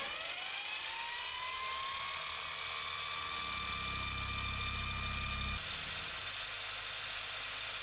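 Mini milling machine's spindle motor spinning up with a rising whine that settles in the first second, then running at steady speed while it mills a 45-degree chamfer. A lower rumble joins for about two seconds past the middle.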